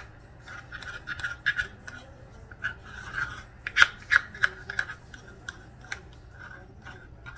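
A spoon scraping thick sourdough starter out of a metal measuring cup: a run of short scrapes and sharp clicks of spoon against cup, the loudest a little under four seconds in.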